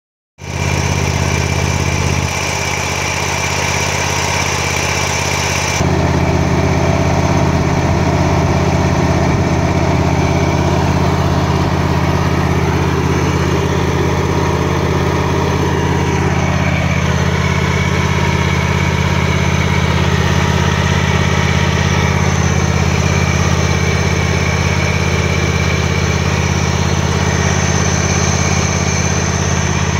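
Exmark Turf Tracer walk-behind commercial mower's engine running steadily at idle.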